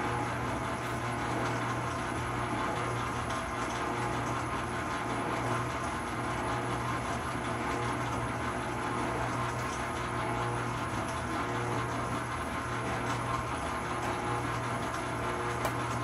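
Commercial stand mixer running steadily while mixing dough, its motor giving a constant low hum with no change in speed.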